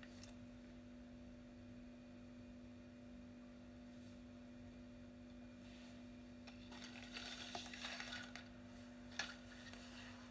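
Faint steady low hum, with a few seconds of soft crackling and hissing about two-thirds of the way through, then a sharp click.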